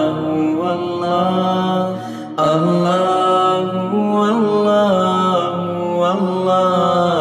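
Intro music of melodic vocal chanting, with long held notes and ornamented slides between them. It dips and comes back abruptly about two and a half seconds in.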